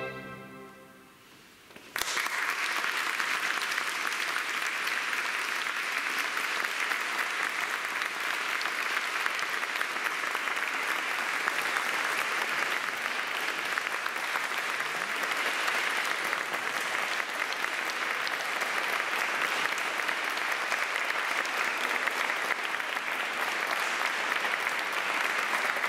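The final chord of a string orchestra with solo cello fades away in the church's reverberation. About two seconds in, the audience breaks into steady applause that continues without a break.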